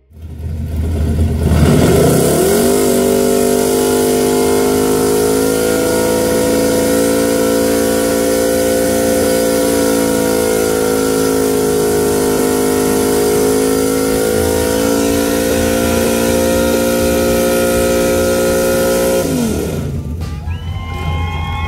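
Chevrolet Malibu sedan's engine revved up and held at high revs during a burnout, rear tyres spinning and hissing against the pavement. The engine note climbs in the first couple of seconds, holds a steady pitch for a long stretch, then drops off near the end as the driver lets off.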